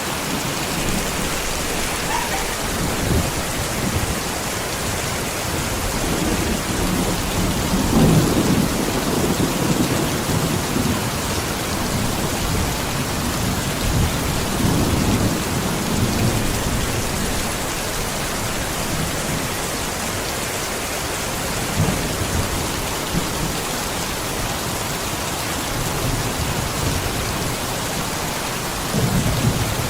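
Steady heavy rain falling and pattering on surfaces, with low rumbles, likely thunder, swelling about eight seconds in, again around fifteen seconds, and near the end.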